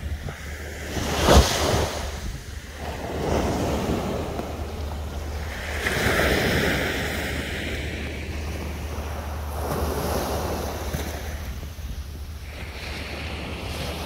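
Sea waves breaking and washing up a sandy beach in swells every few seconds, the sharpest about a second in. A steady low wind rumble on the microphone sits under them.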